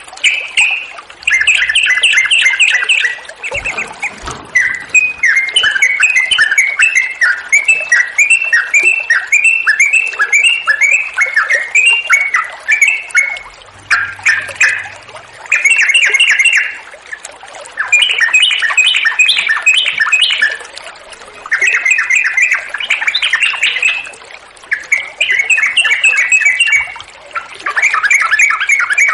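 Yellow-vented bulbul (trucukan) singing in long, fast chattering phrases, each a second or two long, with short breaks between them.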